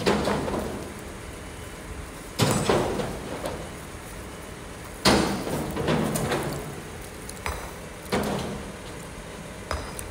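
Kobelco excavator's steel bucket clanking against rock and stone, about four heavy knocks two to three seconds apart, each ringing out for about a second, with a couple of lighter knocks between, over the steady running of the excavator's engine.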